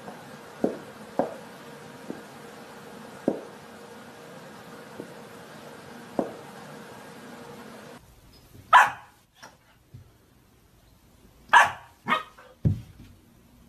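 A puppy barking at its own reflection in a mirror: three short, high barks about nine, eleven and twelve seconds in, followed by a low thump. Before that come a few light knocks as a cat shifts inside a small glass box, over a faint steady hum.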